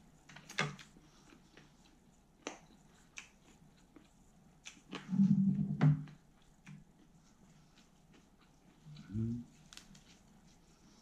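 Eating sounds: chewing a lettuce wrap of thin-sliced pork belly, with scattered small clicks and a louder low sound lasting about a second, about five seconds in.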